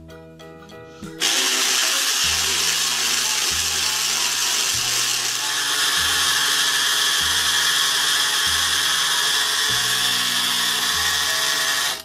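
Battery-powered toy blender running with its jar full of gumballs: a steady, loud whirring hiss that starts about a second in and cuts off abruptly near the end. Background music with a low bass line plays underneath.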